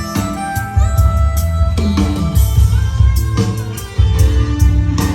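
Music played back for a sound-system test: heavy bass and a steady drum beat under held melodic notes.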